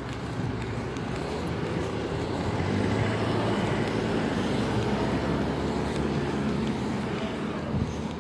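Road traffic running by: a steady rumble of car engines and tyres, swelling a little in the middle.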